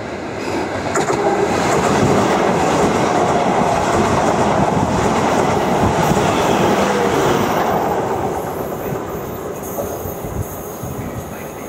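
Class 444 Desiro electric multiple unit running past the platform. Its noise builds over the first two seconds, stays loud for about six, then fades as the train draws away.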